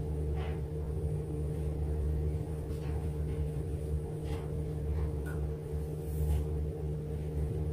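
A steady low hum runs throughout, with a few faint, soft brushing pats from a powder puff being dabbed on the face.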